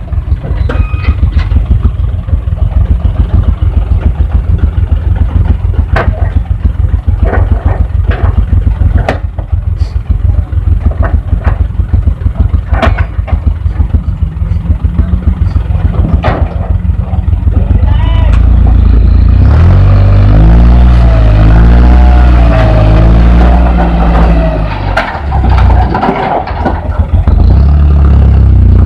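Dump truck's diesel engine running with a rapid low throb and sharp knocks every few seconds. About two-thirds through it revs up and holds steady and louder while the hydraulic hoist raises the loaded tipper body to dump soil.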